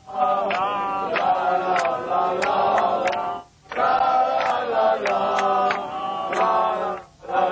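Male voices singing a Flemish-dialect folk song together in a chant-like chorus. Two sung phrases, with a brief breath gap about three and a half seconds in and another just before the end.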